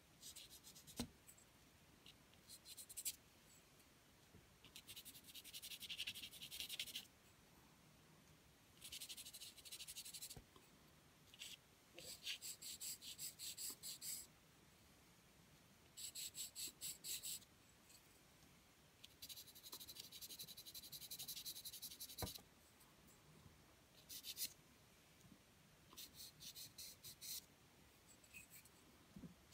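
Pencil point scratching on drawing paper in spells of quick, short back-and-forth strokes, each spell lasting one to three seconds, with brief pauses between them.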